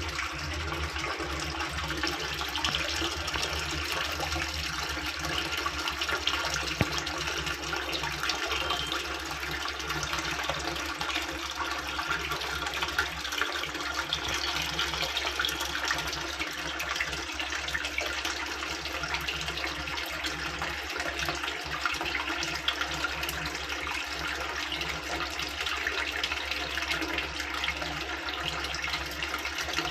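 Water running steadily through a Midea 6.5 kg washing machine. The machine keeps filling and overflowing out through its pipe instead of starting the wash, a fault put down to a bent pressure pipe.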